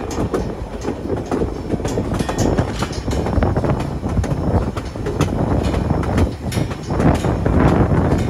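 White Pass & Yukon Route narrow-gauge train cars rolling along the track: a steady low rumble with the clicks and clacks of the wheels over the rails.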